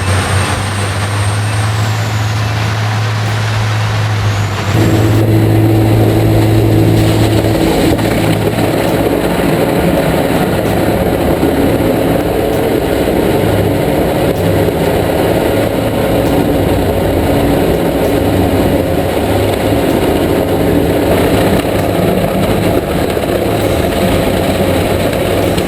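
Heavy wood-processing machinery running loudly with a steady engine hum; about five seconds in the sound changes suddenly to a louder, denser grinding-type machine noise that holds steady.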